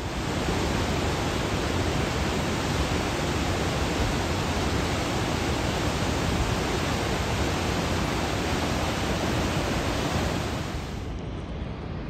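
Whitewater of the Yellowstone River rushing over boulders at the brink of the Lower Falls: a loud, steady rush of water that drops somewhat in level near the end.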